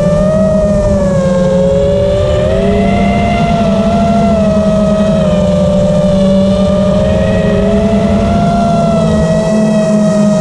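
FPV quadcopter's electric motors and propellers whining steadily, several close tones whose pitch drifts gently up and down with the throttle, over a dense low buzz.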